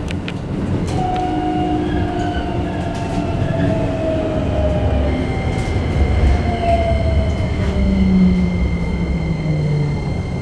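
Traction motors of a Keikyu 1500-series train with a Toyo IGBT-VVVF inverter, whining in several tones that slowly fall in pitch as the train slows on its approach to a station, over the running and rail noise inside the passenger car. A steady high tone joins about five seconds in.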